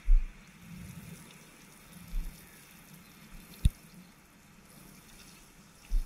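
Water sprinkling from a watering can's rose onto soil and young plants, with a few short low thumps and one sharp click a little past halfway.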